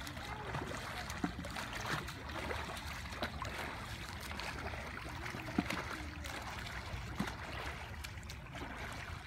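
Water splashing and sloshing from a swimmer's freestyle strokes, with a sharper splash now and then as a hand enters the water, over steady low background noise.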